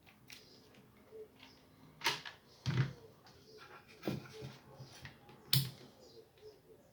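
A handful of sharp clicks and knocks, irregularly spaced, of plastic parts and a cable being handled and plugged in on the opened subwoofer. The loudest knock comes a little before the middle.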